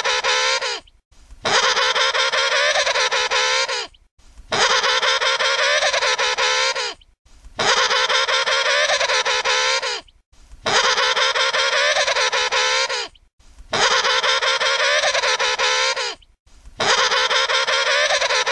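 Emperor penguin trumpeting: the same loud call, about three seconds long with a wavering pitch, repeats at an even pace with brief pauses between calls. It sounds about six times in a row.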